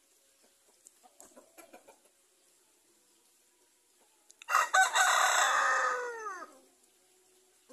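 Rooster crowing once: a single loud crow lasting about two seconds, its pitch falling away at the end. A few faint clucks and rustles come before it.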